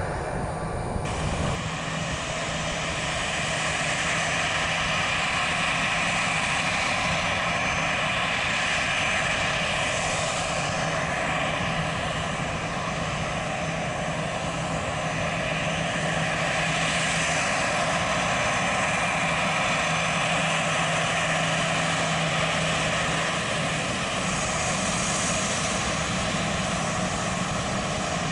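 Airbus A320's two turbofan engines running at low taxi power: a steady whine over a low hum that swells and eases slightly. For the first second or so, the four turboprops of a C-130 Hercules climbing away can be heard, ending in a sudden cut.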